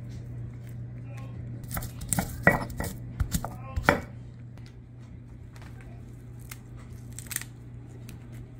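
Kitchen food-preparation sounds: scattered knocks, clicks and clatter of utensils and dishes, busiest in the first half, over a steady low hum.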